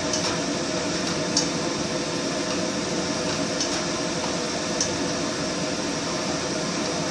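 Mushrooms in their own liquid being stirred in a pan: wet squishing with a few light clicks of the utensil against the pan, over a steady hiss of cooking.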